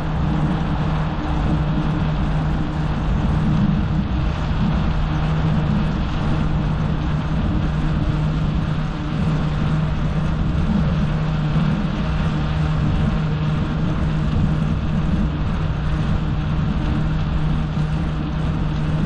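Steady traffic rumble from the elevated expressway overhead, echoing under the concrete deck, with a constant low hum throughout.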